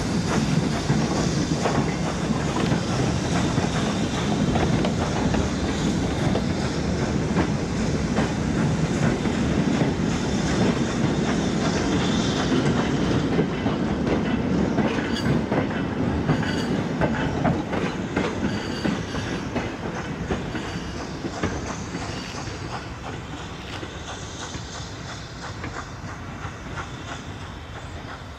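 A goods train of empty open wagons rolling past close by, its wheels clicking over the rail joints in a steady clickety-clack. The rumble fades away in the second half as the train recedes.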